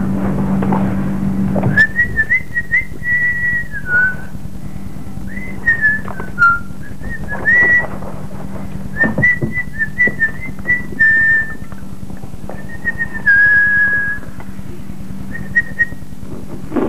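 A person whistling a tune: a string of held and gliding notes, with a couple of pauses, starting about two seconds in. A steady low hum and a few short knocks lie underneath.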